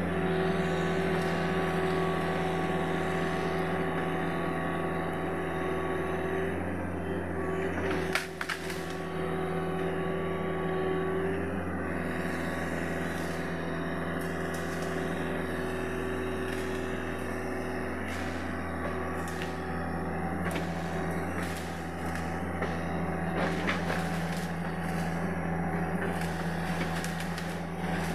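Sany SY75C excavator's diesel engine running steadily while it works, with a few sharp knocks about eight seconds in and again near the end.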